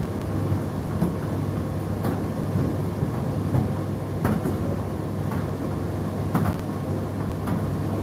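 Indesit IDC8T3 condenser tumble dryer running mid-cycle: a steady low hum from the motor and turning drum, with irregular light knocks as the load tumbles inside.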